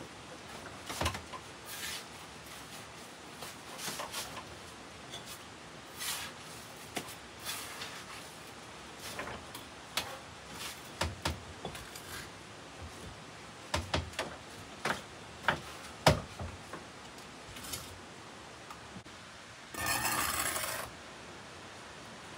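Scattered light knocks and clicks of objects being handled. Near the end there is a rustle lasting about a second.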